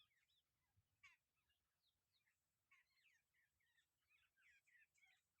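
Faint chattering calls of jungle babblers: scattered short chirps, then a busier run of quick notes from about three seconds in to near the end.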